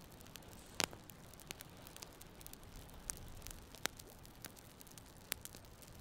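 Small campfire of split kindling crackling: scattered sharp pops and snaps, three louder ones about a second in, near four seconds and just past five seconds, over a faint steady background.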